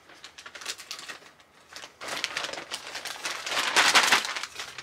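Plastic poly mailer crinkling and rustling as it is worked open, a rapid crackle of thin plastic that grows loudest about four seconds in.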